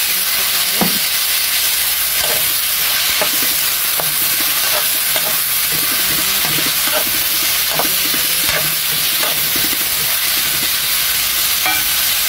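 Sliced red bell pepper, carrot and onion sizzling in hot oil in a frying pan, with a steady hiss. A utensil scrapes and clicks against the pan at irregular moments as the vegetables are stirred.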